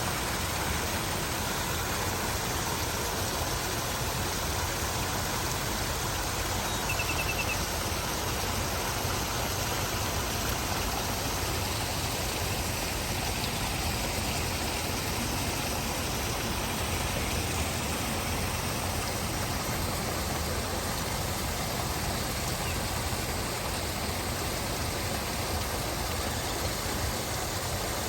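Steady rushing of falling water from a waterfall, an even unbroken roar.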